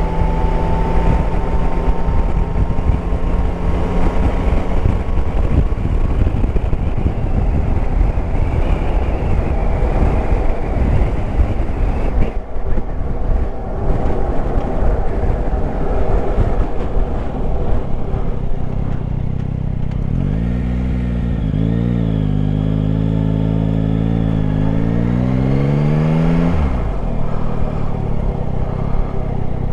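Yamaha Tracer 9 GT's inline three-cylinder engine running under heavy wind rush on the on-board microphone while riding. In the last third the engine note rises in pitch several times as it pulls through the gears, then drops off suddenly as the throttle closes.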